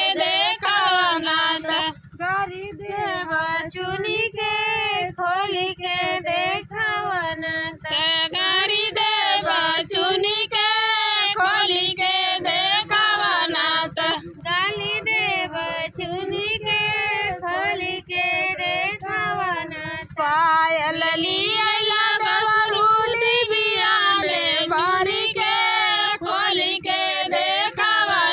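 Two women singing a Bhojpuri folk wedding song in high voices, without instruments, the melody running on with only brief breaths between phrases.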